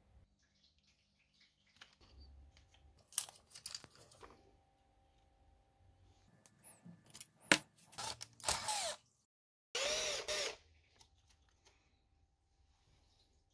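Hands working on a metal RC car chassis: scattered clicks and knocks of metal parts being handled, one sharp knock a little past the middle, then two short rasping noises about a second apart.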